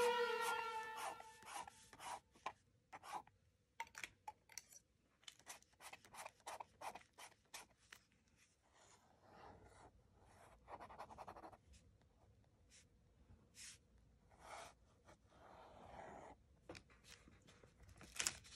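Metal dip-pen nib scratching on drawing paper: many short, quick strokes, then several longer drawn-out scratches in the second half. A music track dies away at the start.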